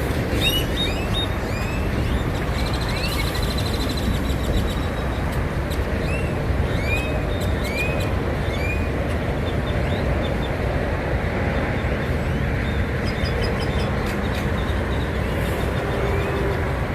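Great-tailed grackles calling: runs of short arching whistles, one run about half a second in and four more evenly spaced calls a little past the middle. Under them runs a steady low engine rumble.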